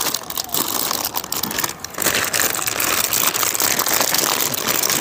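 Plastic packaging crinkling and rustling in the hands as a new motorcycle fork boot is unwrapped and handled. The crackling grows denser and louder about two seconds in.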